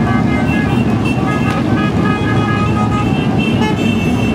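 A procession of cruiser motorcycles riding past, their engines running in a steady low rumble, with many short horn toots sounding over it.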